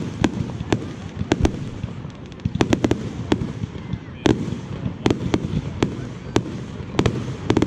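Fireworks display: sharp bangs of bursting shells come at irregular intervals, about two a second, over a steady low background noise. The broadest bang falls about four seconds in.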